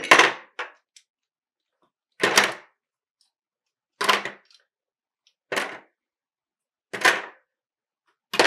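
Black plastic action-camera mounts clattering as they are set down on a table, a handful at a time: six short clatters, about one every one and a half seconds.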